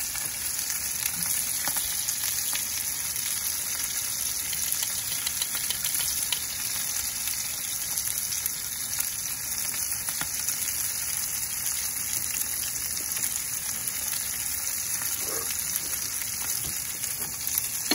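Ahi tuna steaks searing in hot oil in a cast iron skillet: a steady high sizzling hiss with fine crackles.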